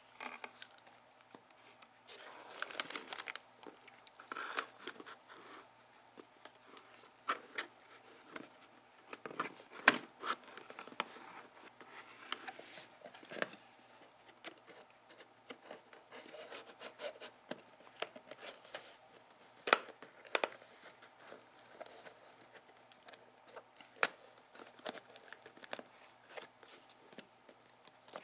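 Hands handling a cardboard box and its plastic-bagged contents: plastic bags crinkling and cardboard flaps rustling and scraping, with scattered sharp taps and clicks.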